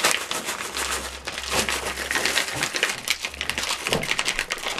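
Plastic BeanBoozled candy bag crinkling in irregular crackles as it is handled and rummaged through for a jelly bean.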